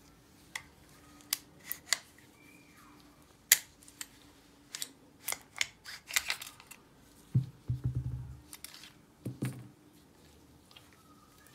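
Metal parts of a Zoraki 917 pistol clicking and clacking as it is taken apart by hand: a string of sharp clicks, the loudest about three and a half seconds in, as the slide is worked and pulled off. Duller clattering follows around eight seconds in and again a second later as parts are handled and set down.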